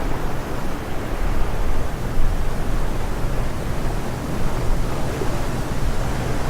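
Wind-rush sound effect for drone flight: a steady, unpitched rushing noise, heaviest in the low end and wavering in level, with no motor whine.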